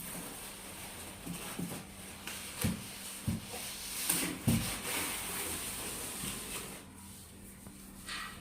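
Rustling and handling noise as parts and packaging are taken out of a TV box, with a few dull knocks about a third and halfway through.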